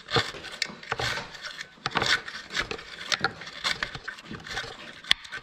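Screwdriver tip scraping and prying packed nest debris out of the completely blocked exhaust outlet of a Husqvarna 553RBX brushcutter, in a run of irregular scratching strokes with small clicks.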